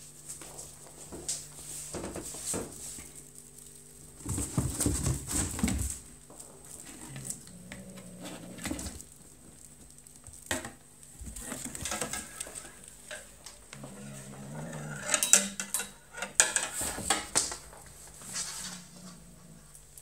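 British shorthair kitten playing rough with a feather wand toy: irregular scrabbling, scratching and thumps of paws and claws on a cardboard box and floor, with rustles and clatter. A low growl comes twice, about eight and fifteen seconds in.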